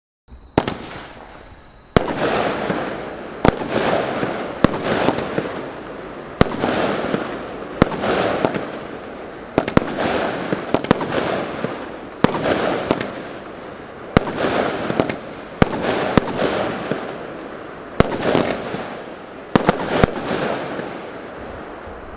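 Champion Brocade Crown 20 mm 16-shot firework cake firing its shots in quick succession: a sharp report every one to two seconds, each followed by a fading crackling hiss from the gold brocade breaks. The firing starts about half a second in and cuts off suddenly near the end.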